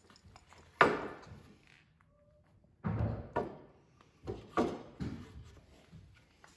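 Knocks and thuds of wood being handled on a sawhorse log jig: a sharp knock about a second in, a heavier double thud around three seconds in, then a few more knocks around four and a half seconds.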